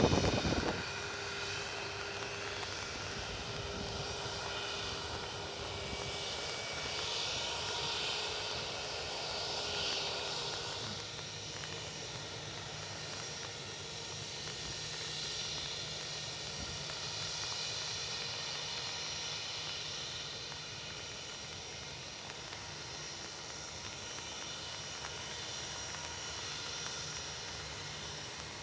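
Airbus A320-200 jet engines running steadily: a whine of several high steady tones over a low rumble, swelling and easing slowly. A brief gust of wind hits the microphone right at the start.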